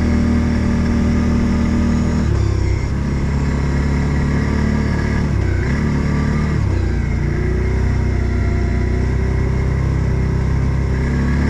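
Odes 800 off-road vehicle's engine running under way. Its note drops about two seconds in, falls off briefly twice around the middle, and picks up again near the end.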